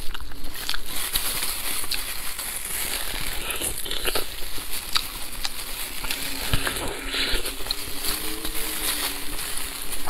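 Close-miked eating of a spicy braised rabbit head: wet chewing, sucking and small crackling clicks as the meat is bitten and pulled apart, mixed with the crinkle of disposable plastic gloves.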